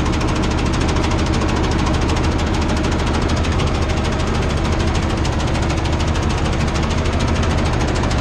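Tractor's diesel engine running steadily under working load, heard from inside the cab, with a fast, even knocking beat.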